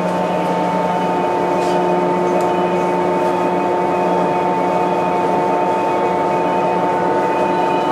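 Steady electrical hum inside a 415 series electric train car at the platform: several fixed tones over a low rumble, holding even without rising or falling.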